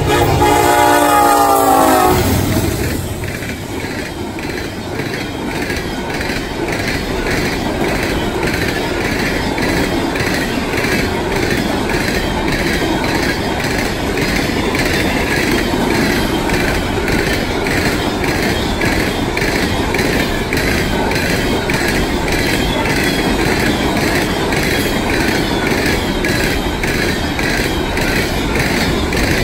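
Diesel freight locomotive horn sounding for about two seconds, its pitch sliding slightly down, then cutting off. After that, a long train of coal hopper cars rolls past with a steady rumble and a rhythmic clickety-clack of wheels over the rail joints.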